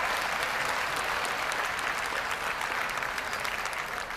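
Arena audience applauding steadily.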